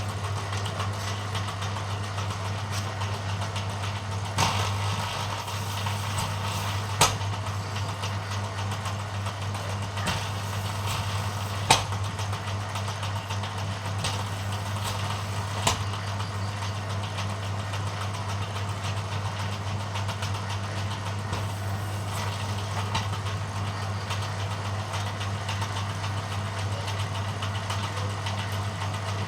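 Bamboo thinning machine running steadily with a low hum, with a handful of sharp clicks scattered through.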